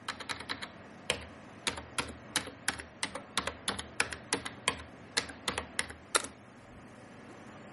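Typing on a computer keyboard: a quick run of separate keystroke clicks lasting about six seconds, with a short gap about a second in, then stopping.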